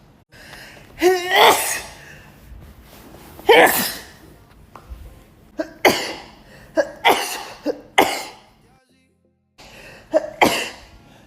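A woman sneezing over and over in a sneezing fit. A rising gasping 'ah' leads into the first sneeze, then the sneezes come as sharp bursts, several in quick succession in the middle and a final pair after a brief pause.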